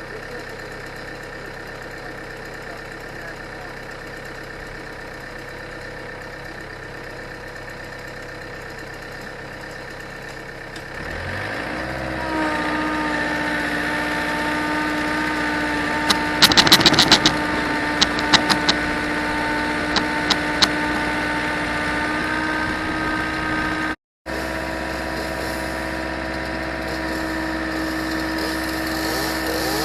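An engine running steadily, then about a third of the way in a second engine starts up, its pitch rising quickly and settling into a steady, higher, even run, with a few sharp clicks soon after. The sound drops out for a moment near the end before the engine carries on.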